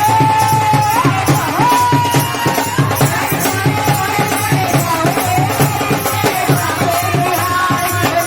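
Instrumental passage of a Hindi Krishna bhajan: a held melody line that steps up in pitch about a second in, over a steady, fast hand-drum beat with a rattle.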